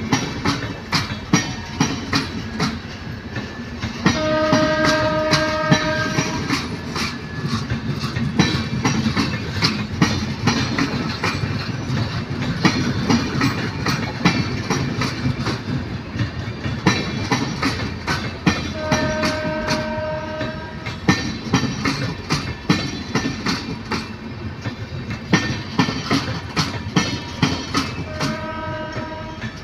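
Express train's passenger coaches rolling past, the wheels clicking over rail joints over a steady rumble. A train horn sounds three times: a blast of about two seconds around four seconds in, another a little past the middle, and a shorter one near the end.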